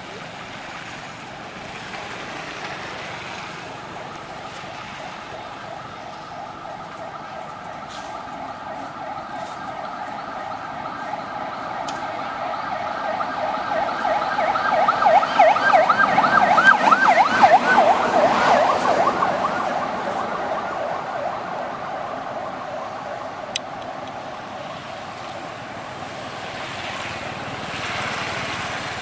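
A wavering, siren-like tone from a passing vehicle. It swells to its loudest a little past the middle and then fades away.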